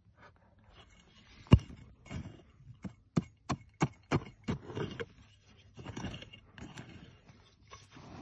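Small pick hammer chopping into dry, clumpy soil: one hard blow about a second and a half in, then a quick run of blows about three a second. Loose dirt is then scraped and pushed aside.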